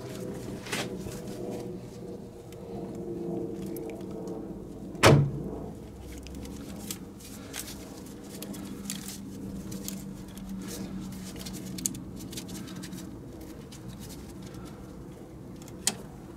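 Small metallic clicks and knocks from hands fitting an accelerator cable's end nipple onto a car's throttle linkage, with one sharp, loud click about five seconds in and a few fainter ones later, over a steady low hum.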